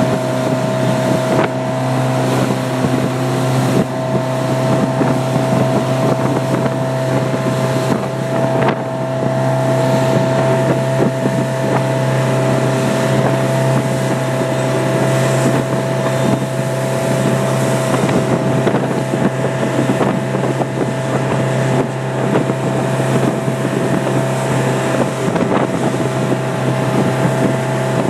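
Motorboat engine running steadily while the boat is driven hard, with a constant drone and wind buffeting the microphone.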